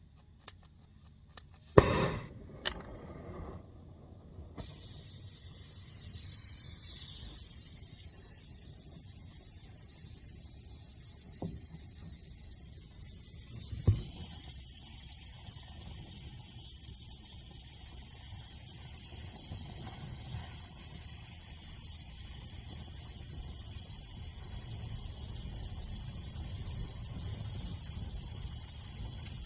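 A few clicks and knocks, then about four and a half seconds in a brazing torch flame starts hissing steadily as a copper refrigerant line joint is brazed.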